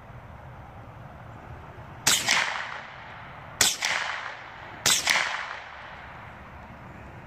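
Three rifle shots, about a second and a half apart, each with a short echo trailing off.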